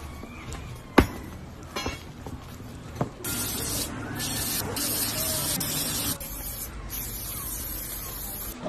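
Aerosol spray-paint can hissing in two long bursts with a short break between them, after a sharp click about a second in.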